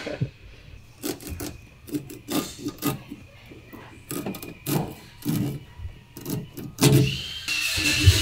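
Irregular clicks and knocks of a rubber exhaust hose and a small hand tool being handled as the hose is fitted, with a louder knock about seven seconds in.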